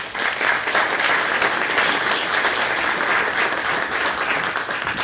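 An audience applauding, dense and steady clapping that begins to die away near the end.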